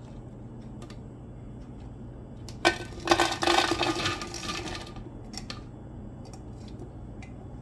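Raisins poured into a glass mason jar: a rattle of fruit against glass starting about three seconds in and lasting about two seconds. A few light clicks come before and after it.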